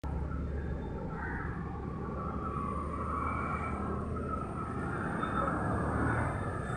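An engine running at a steady idle, a low even hum, with open-air background noise.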